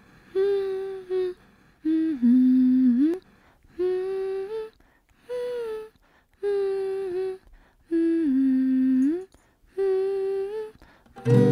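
A single voice humming a slow wordless melody in short phrases of about a second each, with brief pauses between them: the a cappella opening of a song. Near the end, strummed acoustic guitar and fuller music come in.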